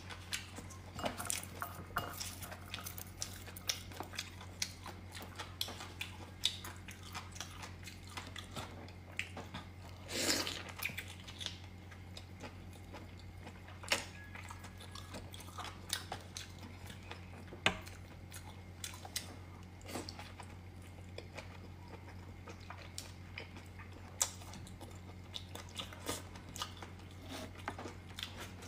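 Close-miked chewing and eating of noodles, most likely pork lung noodles, with many short wet clicks and taps scattered throughout and one longer, louder noisy sound about ten seconds in. A steady low hum runs underneath.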